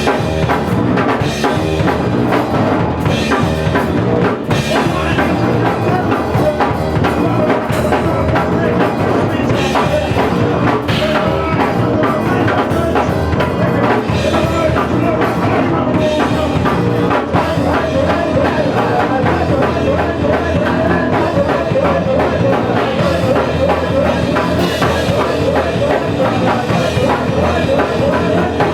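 Live drum kit and electric bass playing a fast, driving punk-rock song together without a break.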